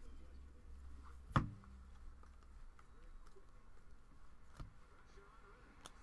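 Stack of trading cards handled and flipped through by hand, with soft clicks and slides of card stock. A sharp knock comes about a second and a half in, and a smaller one about four and a half seconds in.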